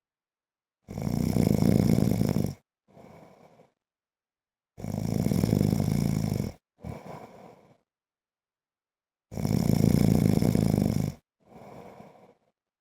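A man snoring in his sleep: three loud, rasping snores, each nearly two seconds long, coming about every four and a half seconds. Each snore is followed shortly by a softer, shorter breath.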